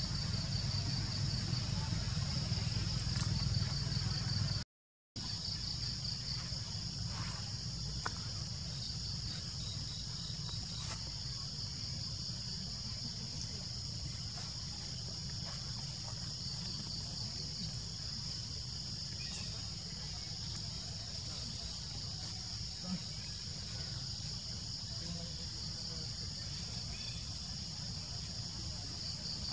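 A steady, high-pitched chorus of insects with a low rumble of outdoor background noise beneath it. The sound cuts out completely for about half a second about five seconds in.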